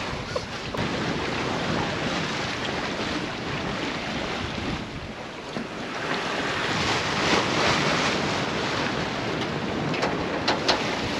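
Water rushing and splashing along the hull of a sailboat under way on a broad reach, with wind buffeting the microphone. The rush swells about halfway through, and a few light clicks come near the end.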